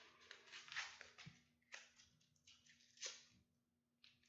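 Faint rustling and scraping of packaging being unwrapped by hand, with one sharper click about three seconds in.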